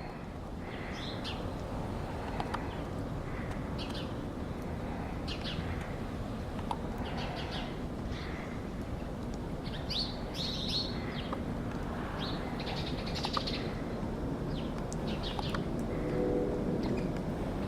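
Small birds chirping in short, scattered calls over a steady low background rumble, with a brief low hum near the end.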